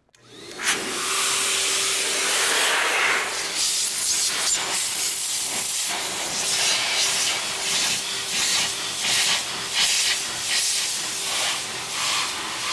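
Metro Master Blaster car dryer switched on, its blower spinning up within half a second, then running steadily: a loud rush of air over a constant motor whine, the rush swelling and dipping as the hose nozzle is swept over the wet, freshly rinsed engine bay to blow it dry.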